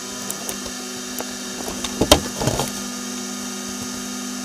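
Phone being handled: a few faint clicks, then a sharp click about two seconds in followed by a brief rustle, over a steady low hum.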